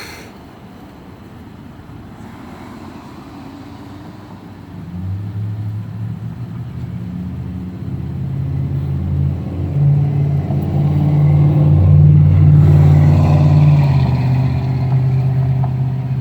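A motor vehicle's engine running close by: a low hum that comes in about five seconds in, grows louder for several seconds, then eases slightly near the end.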